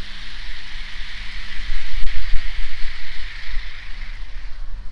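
OO gauge model train running past on the garden track, a steady hiss of wheels on rail that fades near the end, over the steady drone of a lawnmower engine. A low buffeting rumble swells about two seconds in.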